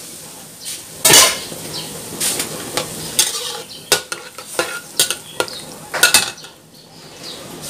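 A utensil stirring teriyaki sauce in a pan, clinking against the pan several times over a faint sizzle.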